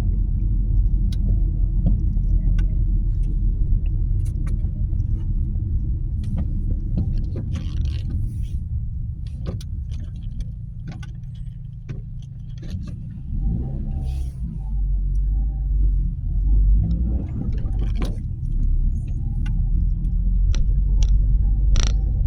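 Nissan Qashqai 1.2 petrol engine running steadily, a low hum with scattered sharp clicks and ticks over it; it drops in level for a few seconds around the middle.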